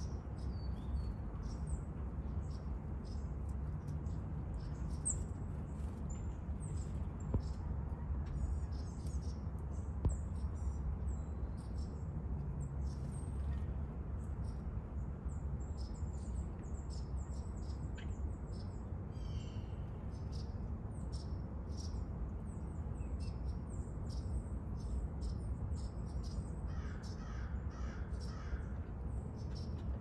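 Wild birds calling: many short, high chirps scattered throughout, over a steady low rumble. Near the end comes a quick run of lower, harsher repeated calls.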